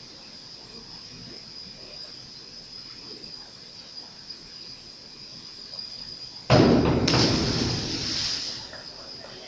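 A springboard diver hits the pool water with a sudden loud splash about six and a half seconds in, and the noise fades over the next two seconds in the echoing pool hall. A faint steady high whine runs underneath.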